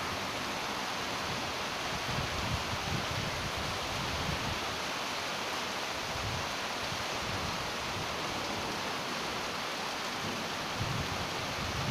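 Heavy rain falling steadily: a dense, even hiss of rain on concrete and plants, with low rumbles coming and going underneath.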